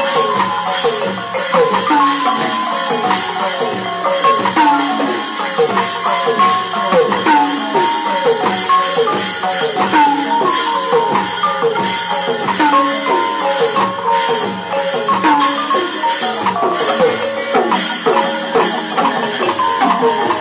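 Burmese hsaing waing ensemble playing fast dance music for a nat pwe: rapid melodic runs of tuned percussion, many notes dipping slightly in pitch, over a steady shaker-like rhythm.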